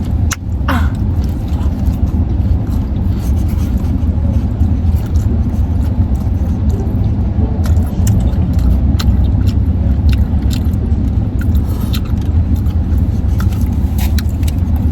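Steady low rumble of a car's interior, with scattered short clicks, crackles and crunches from eating and handling food and its packaging.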